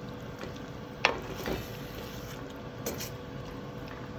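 A spoon stirring thick chili in a pot, with two sharp knocks against the pot about a second in and just before three seconds, over a steady low hiss and faint hum.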